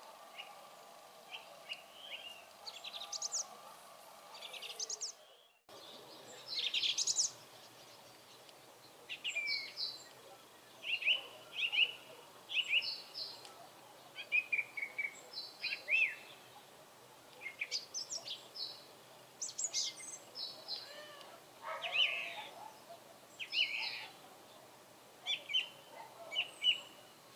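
Song thrush singing: short, clear phrases, many repeated two or three times before moving on to the next. Before a cut about five seconds in, softer chirps from another small bird over a faint steady hum.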